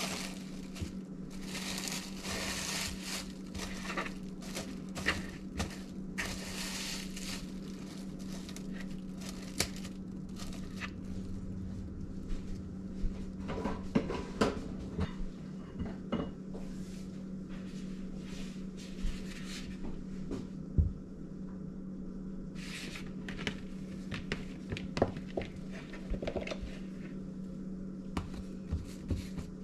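Plastic cling wrap crinkling as it is stretched and pressed over a plastic mixing bowl, in two stretches of a couple of seconds each early on, with scattered taps and knocks of handling. A steady low hum runs underneath.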